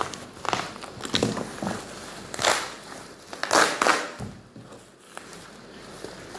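Packaging crinkling and rustling as it is handled and opened: a run of short crackly bursts, settling down for the last couple of seconds.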